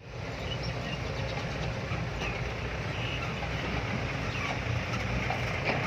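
Diesel engine running steadily with a low rumble.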